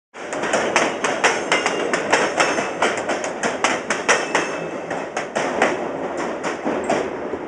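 Railway wheels clacking over rail joints: a fast, irregular run of sharp metallic clacks, several a second, over a steady rumble. It starts abruptly.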